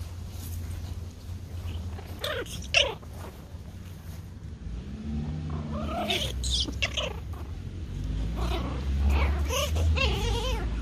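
Pomeranian puppies at play, giving high-pitched whines and yelps in short bursts about two, six and nine seconds in, over a low steady rumble.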